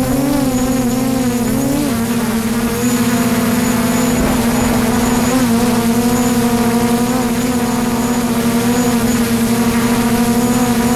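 DJI Mavic quadcopter's motors and propellers giving a loud, steady hum. The pitch wavers for the first couple of seconds, then holds level.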